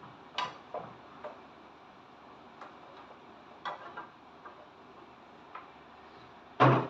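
Scattered light clicks of a cooking utensil against a pan as vegetables are stirred, with a louder knock near the end.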